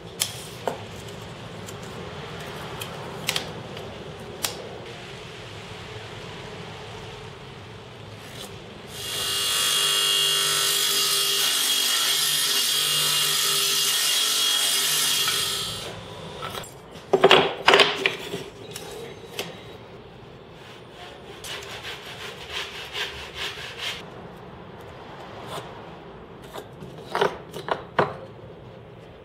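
Light scraping and tapping as wooden strips are marked with a pencil and square on a table-saw sled. About nine seconds in, a table saw starts up and runs steadily for about seven seconds as a jig on the sled is pushed through the blade, then winds down. Afterwards there are sharp knocks of wood pieces being handled and set down, and more pencil marking.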